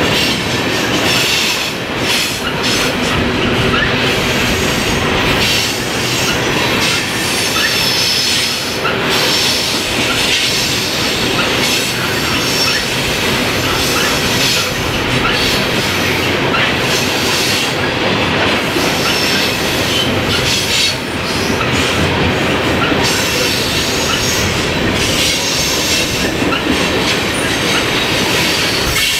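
CSX freight train of open-top coal hopper cars rolling past close by: a loud, steady rumble of steel wheels on rail, with frequent clicks from the wheels over the rail and a faint high wheel squeal.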